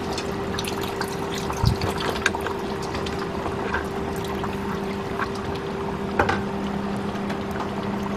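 Tamarind juice poured from a steel bowl into a pan of cooking curry, with a few clinks and knocks, the loudest about two seconds in and again near six seconds. A steady hum runs underneath.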